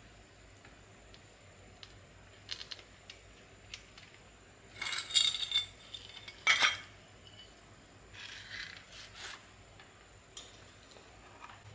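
Small metal parts and tools clinking and scraping as they are handled, with a cluster of clinks about five seconds in and one sharp metallic strike just after, then softer scraping.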